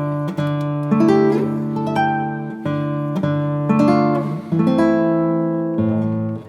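Background music: an acoustic guitar strumming chords, a strum roughly every two-thirds of a second.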